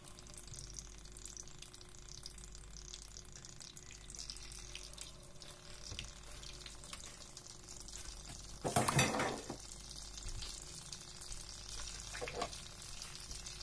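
Flour-dredged red fish fillets frying skin-side down in butter and sunflower oil: a steady sizzle with fine crackling. A brief louder noise comes about nine seconds in, and a smaller one near the end.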